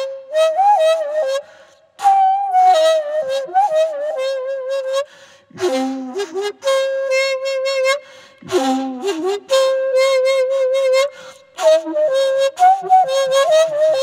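A daegeum, the Korean large bamboo transverse flute, playing a solo sanjo melody. It plays phrases of held, wavering notes with bends and slides in pitch, broken by short gaps between phrases.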